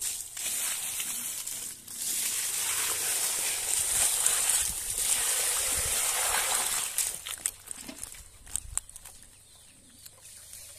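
Water poured from a metal bucket into a woven bamboo basket of small fish, splashing and draining through the weave onto the ground as the catch is rinsed. It comes in two pours, a short one and then a longer one of about five seconds, followed by scattered drips and small taps.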